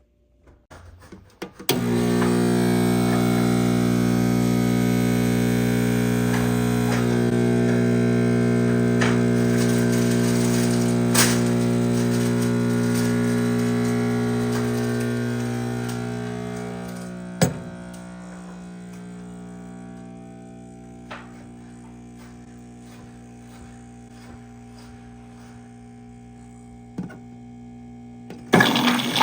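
Turin Legato espresso machine's pump humming steadily as it pushes water against a pressure-gauge portafilter in a pressure test. It starts about two seconds in, drops to a quieter hum about halfway through, and stops near the end, with a few clicks along the way.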